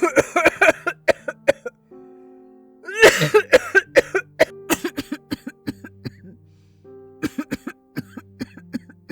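A woman coughing in fits of realistic, intense hacking coughs: a rapid run, a short pause, then the loudest fit about three seconds in, trailing off into a string of single coughs. Soft background music plays underneath.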